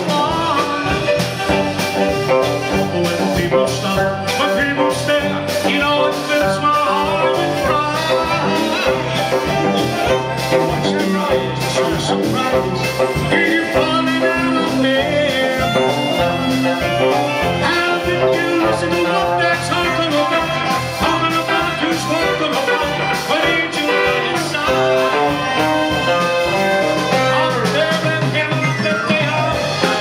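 Live pub band playing with electric guitar and drum kit, a man singing lead into a handheld microphone over a steady beat.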